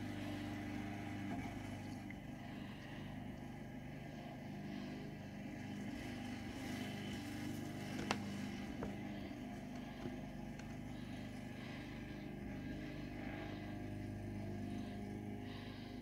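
Steady low mechanical hum, with one sharp click about eight seconds in and two faint ticks after it.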